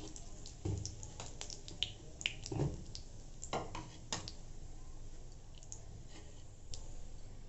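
Cumin seeds crackling in hot mustard oil: irregular sharp pops over a faint sizzle, coming thick for the first few seconds and then thinning out. The crackle is the tadka stage, the sign that the oil is hot enough and the seeds have bloomed.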